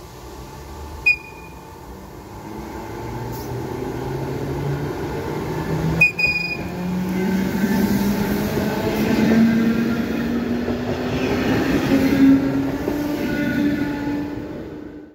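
Electric multiple unit pulling away and passing close by, its traction motors whining in a steadily rising pitch as it gathers speed over the rumble and clatter of wheels on the rails. Two short high beeps come about a second in and about six seconds in.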